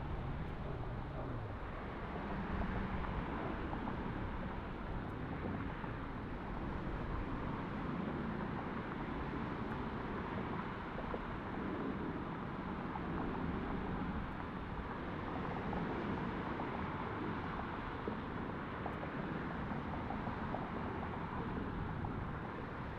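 Jet airliner engines at taxi power, a steady even noise with no distinct events.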